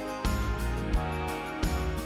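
Background music with a steady beat: sustained chords over a low hit about every 0.7 seconds.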